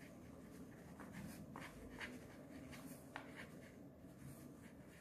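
Faint scratching of a pen writing on a sheet of paper, with a few small ticks as the pen strokes start and lift.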